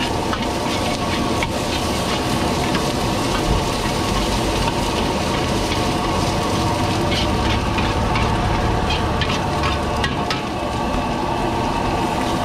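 Stir-fry sizzling in a wok over a gas burner, stirred and tossed with a metal ladle that scrapes and clinks against the pan at scattered moments over the steady frying.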